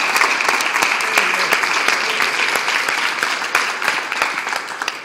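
Audience applauding: many people clapping in a dense, steady patter that thins a little and then stops abruptly at the end.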